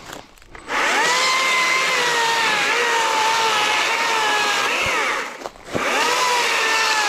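Stihl MSA 120 C battery-powered electric chainsaw starting up about a second in and cutting a log. Its motor and chain make a steady whine that dips slightly in pitch as the chain bites into the wood. It stops briefly about five seconds in and then starts again.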